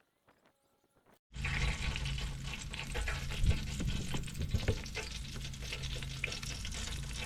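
Fish frying in hot oil in a pan, a steady sizzle full of small crackles and pops, starting abruptly about a second in, with a low steady hum underneath.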